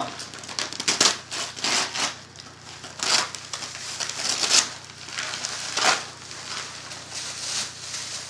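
Gift wrapping paper being torn and crumpled by hand as a present is unwrapped, in irregular rustling bursts, the loudest about three, four and a half and six seconds in.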